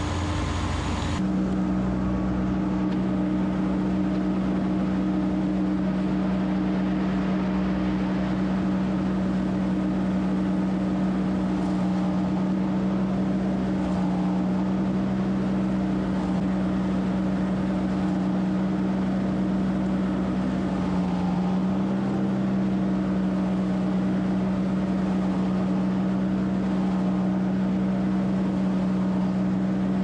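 Tractor-driven forage blower running steadily while filling the silo with chopped alfalfa. It gives a constant, even hum that shifts about a second in and then holds unchanged.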